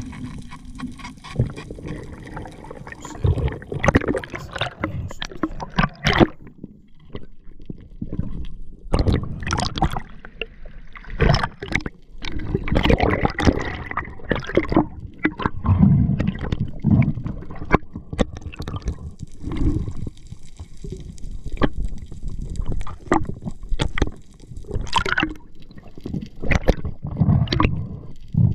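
Water splashing, sloshing and gurgling heard from underwater as a freediver swims at the surface and dives, coming in irregular rushes.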